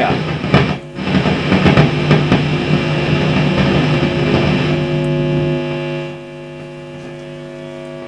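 Fender Vibro King valve guitar amp roaring loudly through its speaker with a fault noise. About six seconds in, the roar drops away and leaves a steady horrible hum, which the repairer puts down to the reverb not being connected.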